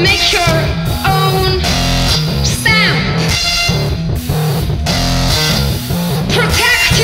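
Loud live electronic rock music: a pounding, distorted bass-heavy beat with synthesizer sounds swooping down in pitch three times, played partly on a Reactable tabletop synthesizer.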